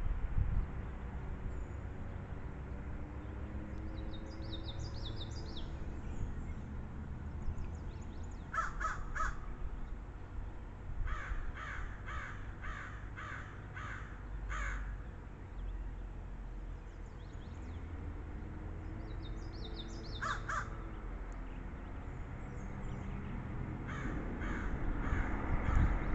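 A bird calling in runs of short repeated notes: three about nine seconds in, a run of about seven soon after, one more near twenty seconds, and another run near the end. Fainter high chirps of smaller birds come between, over a steady low wind rumble.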